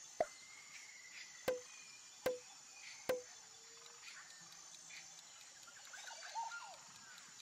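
Four short pop sound effects, each with a brief low tone, spaced about a second apart in the first three seconds. Under them runs a faint background of a steady high chirring and scattered small chirps.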